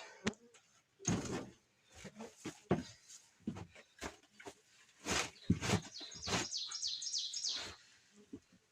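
Snow scoop shovel scraping into and tossing heavy, wet sawdust: a string of irregular scrapes and thuds. A bird chirps a quick run of high notes about six to seven and a half seconds in.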